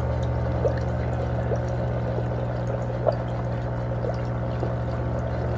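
Electric foot spa bath massager running: a steady motor hum with water churning and bubbling in the basin, and small scattered ticks and splashes.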